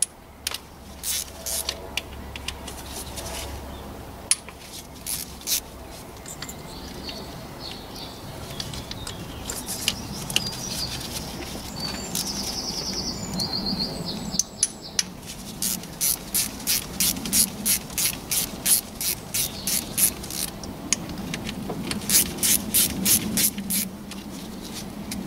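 Ratchet with a size 8 star-type socket clicking in quick runs, about three clicks a second, as the bolts holding a camshaft adjuster magnet are backed out.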